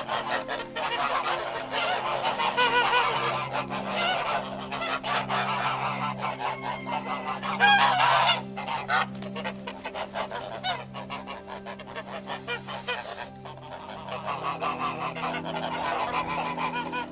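Goose honking repeatedly, call after call with hardly a break, the loudest cluster about eight seconds in.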